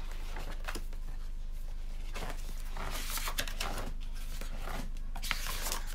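Rustling, rubbing and small clicks of an object being handled and fiddled with, coming and going in short bursts, over a steady low hum.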